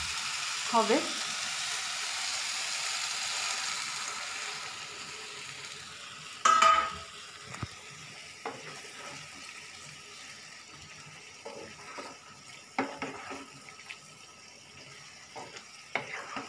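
Jackfruit and potato curry sizzling in a frying pan, the sizzle fading over the first five seconds as water goes in for the gravy. A short ringing clank of the spatula against the pan about six and a half seconds in, then scattered scrapes and taps as the curry is stirred.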